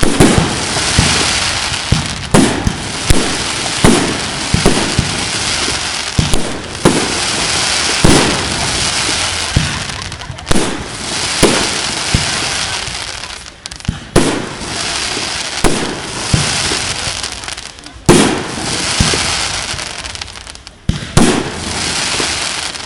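Fireworks display: repeated deep booms of aerial shells bursting, over continuous crackling hiss from the effects, with short lulls between volleys.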